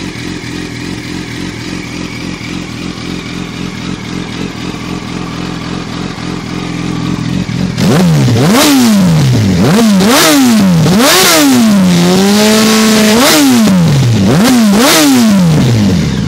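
A 2005 Yamaha YZF-R1's inline-four, fitted with an aftermarket exhaust and cam, idling steadily. About eight seconds in it is revved hard in a series of about six quick blips, one held for about a second, then it drops back to idle near the end.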